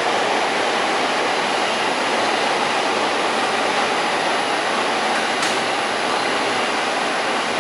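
Steady whooshing hum of a JR 253-1000 series electric train standing at the platform, its auxiliary equipment and air-conditioning running, with a thin steady high whine over it. A brief click about five seconds in.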